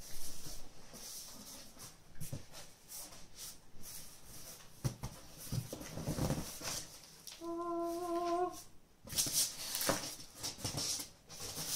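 Cardboard box flaps being pulled open and cardboard sheets handled, with scraping and rubbing of cardboard in bursts. A little past halfway, a short steady hum or whine sounds for about a second.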